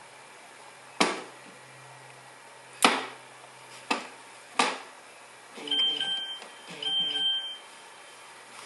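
Four sharp clicks, then two short electronic tone sequences, each under a second, from a mobile phone.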